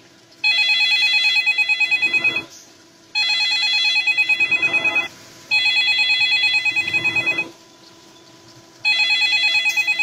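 Telephone ringing with a fast electronic trill: four rings of about two seconds each, with gaps of about a second between them.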